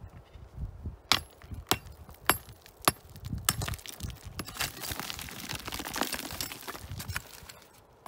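Small hand adze striking rock: five sharp metal-on-stone strikes about every half second, then scraping and raking through loose rock chips and gravel.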